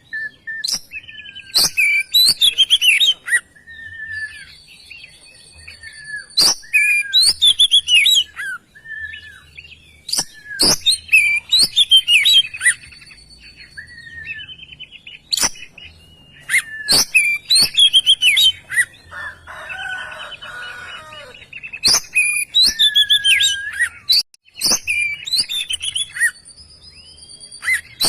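Oriental magpie-robin (kacer) singing loudly in full song: repeated bursts of varied whistles, fast trills and sharp clicks every few seconds, with a harsher, rasping phrase about two-thirds of the way through. This is the vigorous 'gacor' song played to provoke other kacer.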